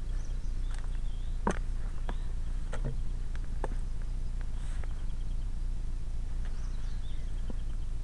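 Mountain bike being pushed through overgrown grass and crops: a steady low rumble, with scattered sharp clicks and snaps. Faint bird chirps sound in the background.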